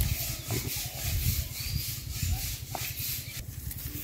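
Rubbing and rustling as radishes are pulled up by hand from the soil, over a steady low rumble.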